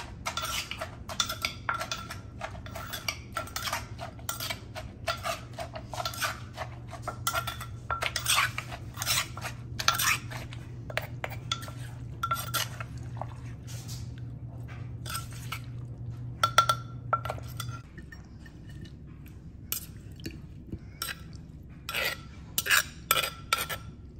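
Wooden pestle pounding green papaya salad in a clay mortar, a quick steady run of knocks, with a spoon clinking and scraping against the mortar as it is turned. A low steady hum sits under it and stops about three-quarters of the way through, after which only scattered clinks of a utensil remain.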